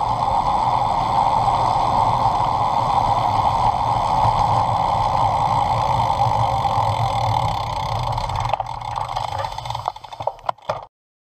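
Wind rushing over the camera microphone with the rumble of road-bike tyres on tarmac while coasting, dying away as the bike slows to a stop; a few sharp clicks and knocks near the end before the sound cuts off.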